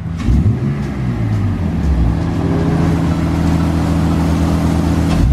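BMW E46 engine accelerating: its note rises in pitch in the first second, then holds a steady drone.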